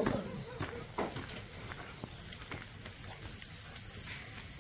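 Young Pungsan dogs: a bark cuts off right at the start, then only faint scattered clicks and light patter, with one sharper click about a second in.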